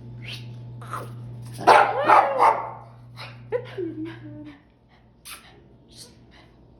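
A dog barking in a quick cluster about two seconds in, followed by a short falling whine.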